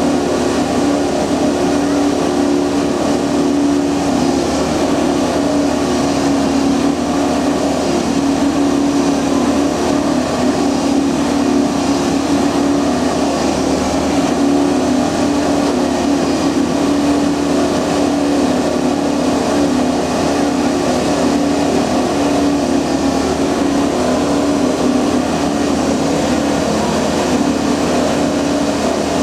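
Multiple tie tamper track machine running steadily: its engine and hydraulics make a loud, constant hum.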